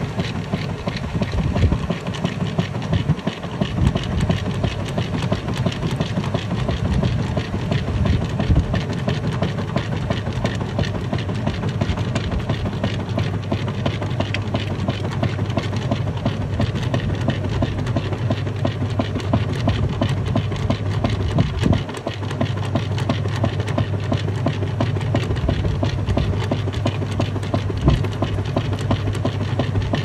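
Maytag Heritage top-load washing machine agitating a load of blankets in water: a steady low motor hum with the churn and slosh of the agitator and wash water.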